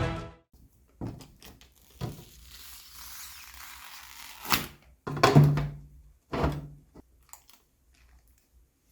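Hard objects being handled and set down: a string of separate knocks and thunks, with a brief low hum among them about halfway through, then a few small clicks.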